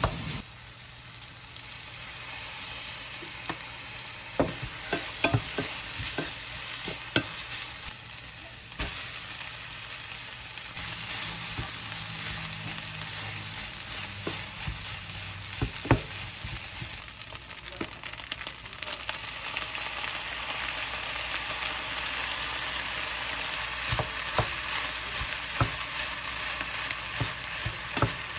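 Food sizzling as it fries in a pan, with a steady hiss, while a utensil stirs it and clicks against the pan now and then.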